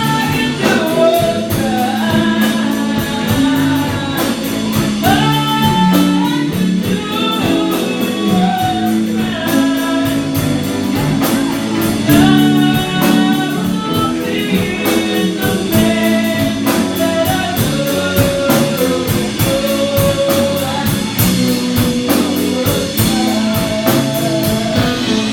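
Rock band playing a song: a sung lead vocal over guitar and a drum kit keeping a steady beat.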